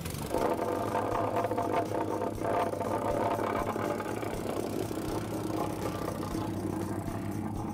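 Wacker Neuson vibratory plate compactor running steadily, its engine and vibrating plate compacting freshly raked hot-mix asphalt.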